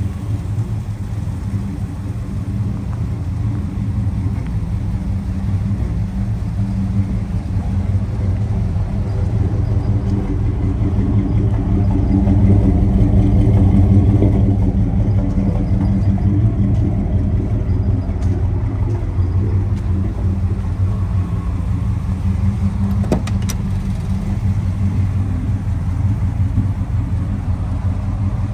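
V8 engine of a 1983 Dodge Power Ram pickup idling steadily, growing louder around the middle as the tailpipe comes close, then easing back. A single sharp click late on.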